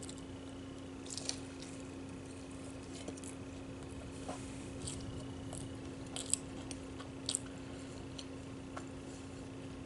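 Someone eating: faint chewing and mouth sounds with a few short sharp clicks, the loudest just after six seconds and around seven seconds, over a steady low hum.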